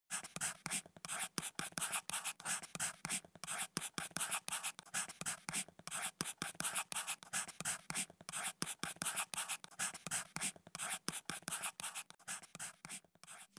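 Pen nib scratching across paper in quick, irregular handwriting strokes, several a second, stopping shortly before the end.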